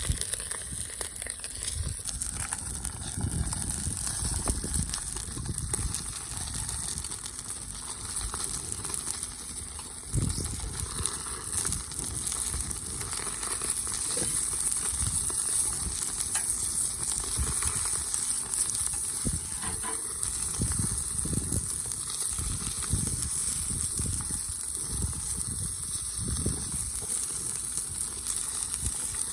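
Food frying with a steady sizzle, with low thumps now and then.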